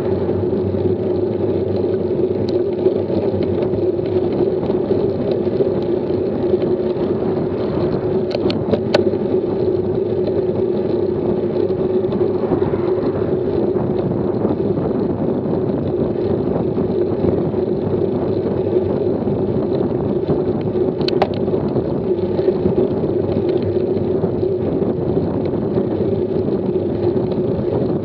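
Steady rushing wind and road noise on a camera mounted on a road bike riding uphill at about 13 mph. A few sharp clicks come about eight and nine seconds in and again about 21 seconds in.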